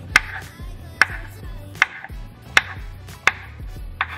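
Kitchen knife slicing sausage into rounds on a wooden cutting board: six sharp knocks of the blade on the board, about one every three-quarters of a second.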